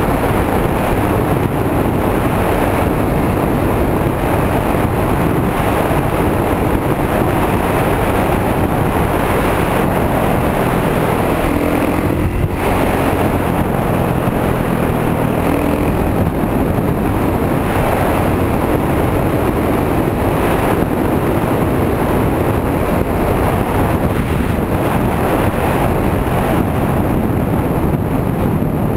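Single-cylinder dirt bike engine running steadily at road cruising speed, heard from a helmet camera and heavily mixed with wind buffeting on the microphone; the sound dips briefly about twelve seconds in.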